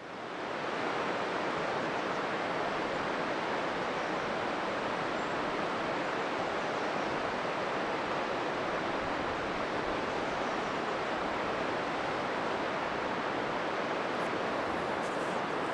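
Steady rush of running water, an even noise that swells up over the first second and then holds level without gusts or breaks.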